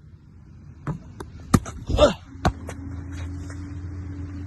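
A basketball striking the outdoor court, a few irregular sharp knocks with the loudest about a second and a half in. There is a short voice exclamation about 2 s in, then a steady low hum from just after that.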